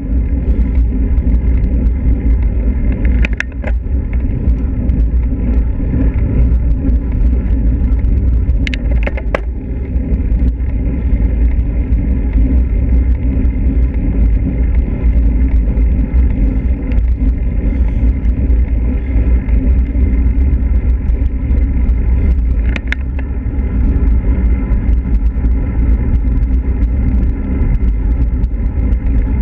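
Steady wind rumble on the microphone of an action camera mounted on a moving road bicycle, mixed with tyre and road noise, with a few sharp clicks scattered through.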